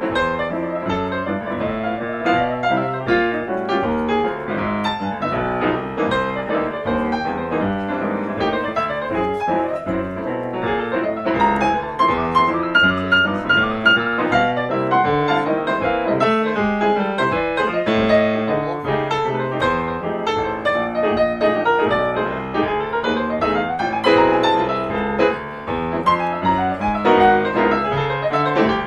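Jazz piano duet on two grand pianos, a dense stream of fast notes across a wide range of the keyboard.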